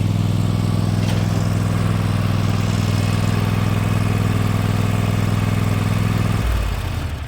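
Small engine running steadily at a fast idle, then throttled down about six and a half seconds in, its pitch and level dropping.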